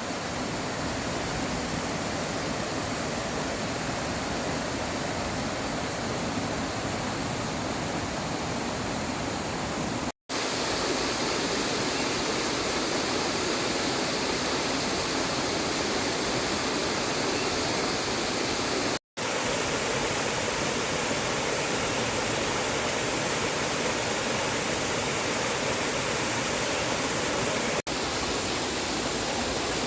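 Steady rushing of flowing water, a waterfall or fast stream, broken twice by a split-second silence.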